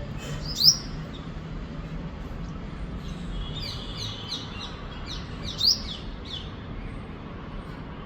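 Sunbird giving sharp, high-pitched chirps: one loud chirp just under a second in, then a run of quick chirps in the middle with another loud one near six seconds. A steady low background rumble runs underneath.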